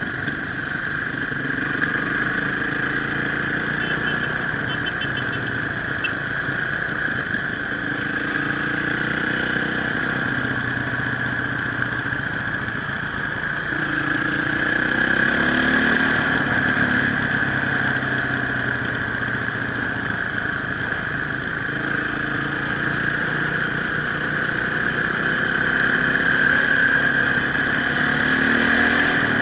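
Enduro motorcycle engine running on an off-road ride, its revs rising and falling several times.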